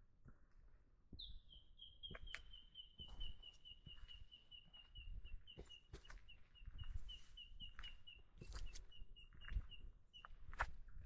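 A bird calling a long, even run of quick high piping notes, about four or five a second. The run starts about a second in, dips slightly in pitch at the start and stops near the end. Scattered footsteps and knocks of walking sound underneath.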